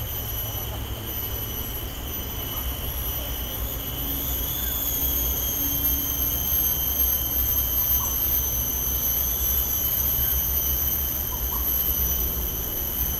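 An insect's continuous high-pitched whine, steady apart from a slight waver about four seconds in, over a low rumble.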